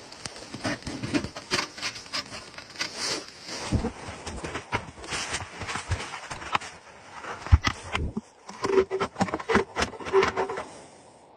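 Snow crunching and clothing rustling as a person crawls through the round wooden door of a snow shelter, with irregular scrapes and knocks against the wood and packed snow. The sharpest knock comes about two-thirds through, and a few short squeaks follow near the end.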